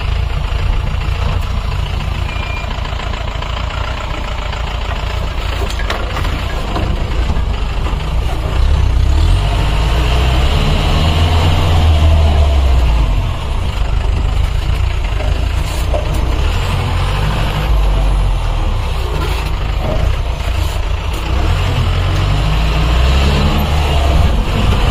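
Off-road vehicle engine running, rising and falling in loudness and getting louder about nine seconds in.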